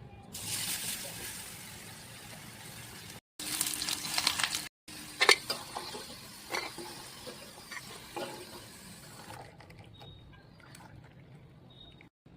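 Potato fingers frying in hot oil with a steady sizzle and a few sharp clicks. The sizzle cuts out briefly twice and grows quieter after about nine and a half seconds.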